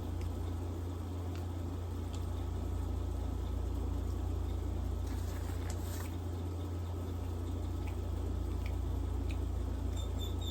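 Steady low hum with faint hiss, broken by a few faint clicks; near the end a rapid run of short, high pips begins.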